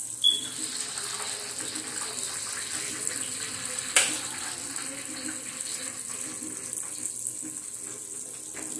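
Thin pork chops frying in lard in a wide pan: a steady high sizzle. A short sharp clink sounds about four seconds in, with a smaller one just after the start.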